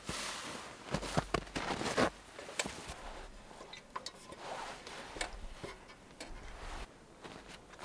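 Rustling and brushing of fur pelts being smoothed on a cot, then light metallic clicks and taps of a hurricane lantern's wire handle and frame being handled and hung on a cord.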